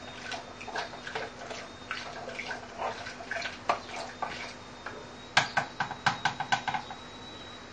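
A spoon mashing and stirring cooked toor dal in an aluminium pressure cooker: wet stirring with scattered light clicks. About five seconds in comes a quick run of sharper knocks, about six in a second and a half.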